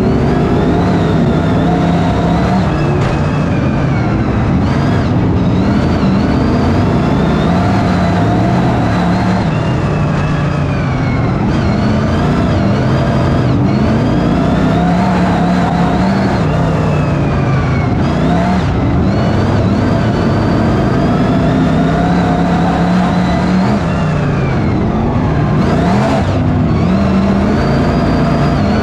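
BriSCA F1 stock cars' V8 engines racing, the pitch rising and falling every few seconds as the cars rev up and ease off round the track.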